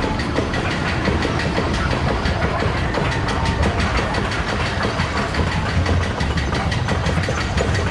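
Roller coaster car being hauled up the chain lift hill: a steady mechanical clatter with rapid, even clicking.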